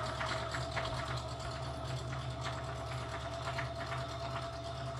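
Electric household sewing machine running steadily as it stitches through fabric: a constant motor hum and whine with a fine, fast needle rattle.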